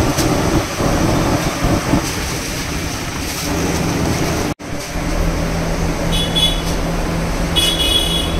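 Busy street traffic noise. It cuts out for an instant about halfway through, then comes back with a steady low drone and two short high-pitched beeps.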